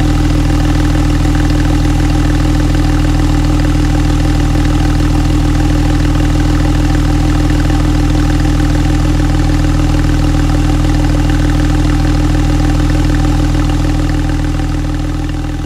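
Porsche 911 Carrera 4's flat-six engine with sports exhaust idling steadily, beginning to fade out near the end.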